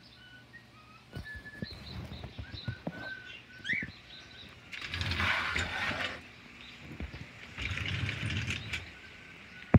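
A small bird chirping repeatedly, short even notes with one quick rising call, over the first few seconds. Then a sliding screen door rolls along its track with a loud scraping rush about halfway through, and another rush comes near the end, among light knocks and steps, ending in a sharp click.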